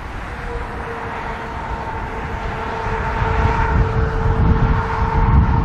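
Wind rumbling on the microphone, growing louder toward the end, with a steady droning hum from highway traffic that begins about half a second in.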